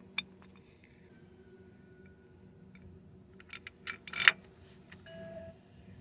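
Scattered light metal clinks and knocks as the engine mount bracket is set onto its studs and its bolts are handled, with the sharpest knock about two-thirds of the way through, over a faint steady hum.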